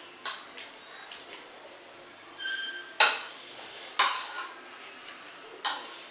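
Metal cutlery clinking and scraping on ceramic plates as people eat: a few sharp clinks spread over several seconds, the loudest about three seconds in, with a brief high ringing tone just before it.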